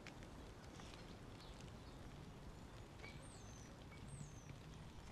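Faint outdoor ambience with light, irregular footsteps, and two brief high bird whistles falling in pitch about three and four seconds in.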